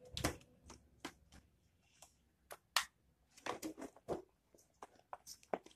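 Scattered light clicks, taps and rustles of small plastic toy parts and a clear plastic package being handled, as toy dart pieces are twisted together.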